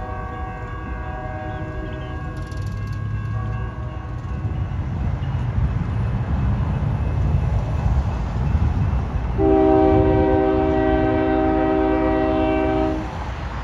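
Freight train rumble with a diesel locomotive's multi-chime horn sounding for the first four or so seconds. About nine seconds in, the approaching BNSF lead locomotive blows a louder, lower horn chord for about three and a half seconds.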